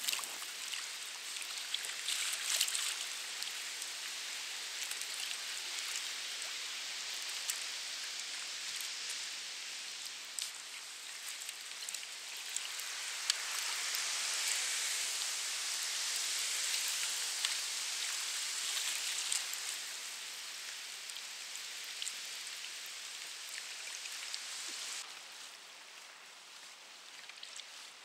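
Sea water splashing and rushing against a kayak's hull in choppy water: a steady hiss with small splashes scattered through it, growing quieter about 25 seconds in.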